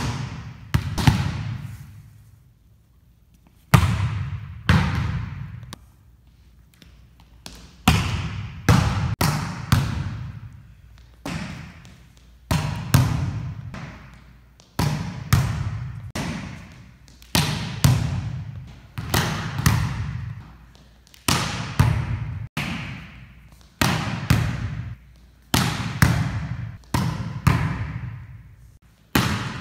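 A volleyball being hit again and again, served and passed against a gym wall: sharp smacks, often in pairs about a second apart, each trailed by the long echo of the gymnasium.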